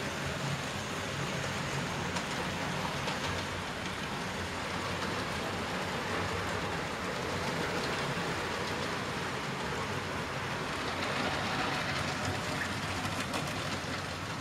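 Model trains running on the layout: a steady whirr of small electric locomotive motors and wheels rolling along the track.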